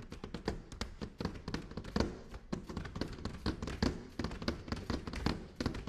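Push brooms played as percussion, with bristle heads and handles struck on the stage floor: a fast rhythm of sharp taps and knocks with a scratchy haze between them. The loudest strike comes about two seconds in.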